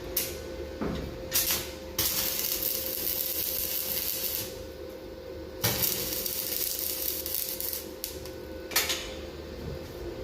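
Electric arc welding: the arc crackles and hisses in two runs of about two and a half seconds each, with sharp metallic knocks before and between them over a steady hum.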